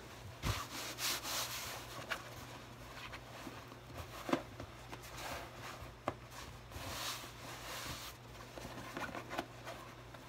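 Clothing rustling and rubbing as a vest, shirt and tie are tugged and straightened over a tight, inflated belly, with a couple of sharp clicks about four and six seconds in.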